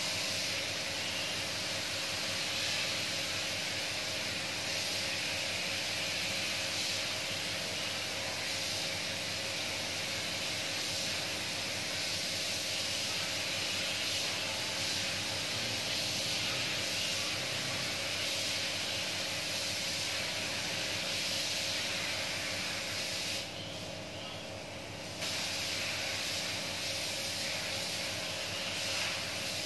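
Gravity-feed paint spray gun hissing steadily as compressed air atomises the paint, with a low steady hum beneath. The hiss stops for about two seconds near the end, then resumes.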